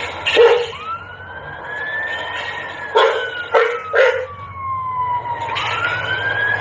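An American Akita barks sharply four times, once at the start and three times in quick succession about three to four seconds in, over an emergency-vehicle siren that wails, rising, falling slowly and rising again near the end.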